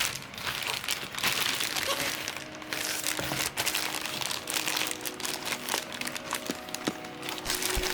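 Packaging being handled and opened by hand, a continuous irregular crinkling and crackling with many small clicks.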